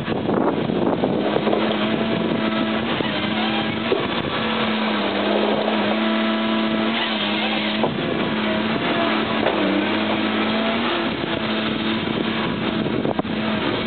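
Tigercat H855C tracked harvester's diesel engine running at high revs, its note dipping briefly several times as the hydraulics take load, with a few knocks from the machine at work.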